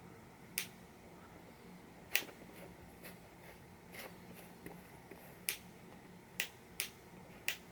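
Sharp, irregular clicks of the plastic welding helmet and its lens assembly being handled, about six loud ones and a few fainter.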